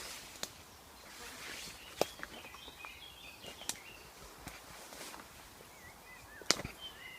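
Footsteps walking through woodland undergrowth, with a few sharp snaps of twigs underfoot, the loudest about two and six and a half seconds in. Small birds chirp faintly in the background.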